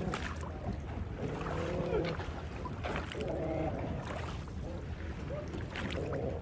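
Fishing boat's engine running with a steady low hum, with three short pitched calls or voices, each under a second.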